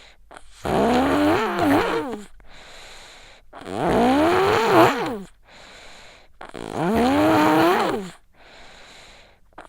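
A sick child snoring in sleep. There are three loud snores about three seconds apart, each lasting over a second with a wavering pitch, and fainter breathing between them.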